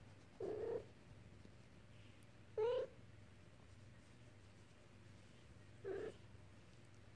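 Three-week-old Bengal kitten mewing: three short, high mews spread a few seconds apart, the middle one the loudest.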